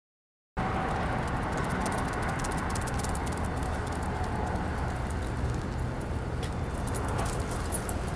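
Silence for about half a second, then steady outdoor background noise with a low rumble and faint scattered clicks.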